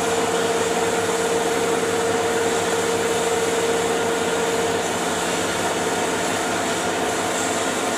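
Metal lathe running steadily, with a constant whine that fades away about five seconds in.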